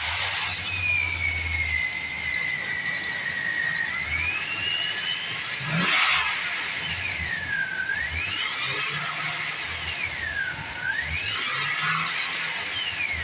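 2007 Chevrolet Silverado's V8 engine running after a start, with a high whine over it that slowly sinks, then swings up and down in pitch about three times. The engine has a bad head gasket.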